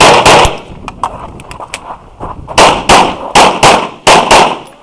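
Glock 34 9mm pistol fired rapidly in pairs of shots about a third of a second apart: a pair right at the start, then after a pause of about two seconds three more pairs in quick succession, eight shots in all.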